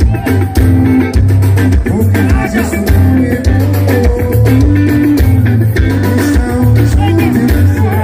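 Live axé band playing loud through a big stage sound system: a pulsing bass line, drums and guitar, with a singer's voice over it.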